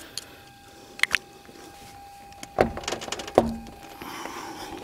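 Car trunk being opened: a couple of light clicks, then two thunks about a second apart.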